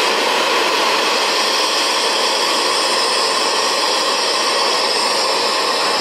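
Theme-park ride steam effect venting with a loud, steady hiss.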